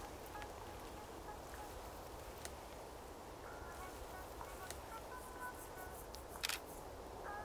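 A DSLR camera's shutter fires once, a quick double click about six and a half seconds in, over a faint steady background hiss.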